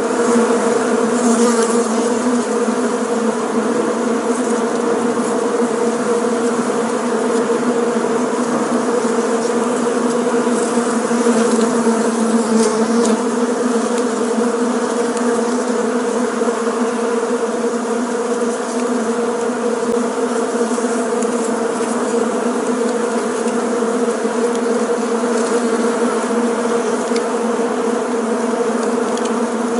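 Bees buzzing in a steady, unbroken drone: one low hum with its overtones, holding the same pitch and loudness throughout.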